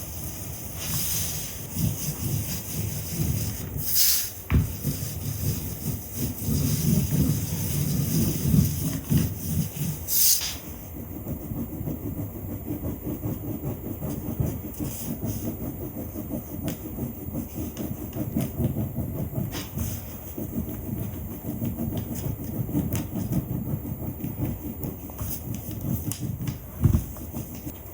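Linocut printing tools working the inked block and paper: a continuous, gritty rolling and rubbing sound, with a few sharp knocks, one about four seconds in, one about ten seconds in and one near the end.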